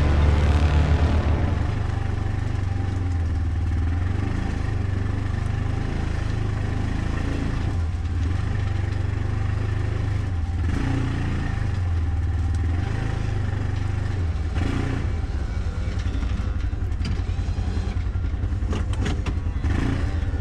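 Side-by-side utility vehicle's engine running steadily as it creeps over rough ground, with the metal calf catcher mounted on its side rattling. A few sharper knocks and clanks come near the end.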